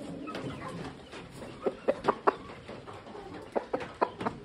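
Chickens clucking: a few short, low clucks in two small clusters, about two seconds in and again near the end.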